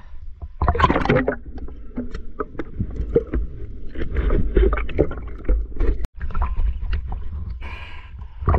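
Water sloshing and splashing around a camera at the surface, stirred by a swimmer, with a low rumble and scattered small knocks and bubbly clicks.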